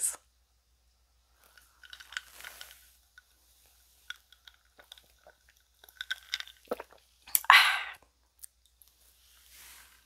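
Sipping and swallowing iced coffee from a glass jar: quiet wet mouth clicks and gulps, then one short, louder breathy exhale about seven and a half seconds in.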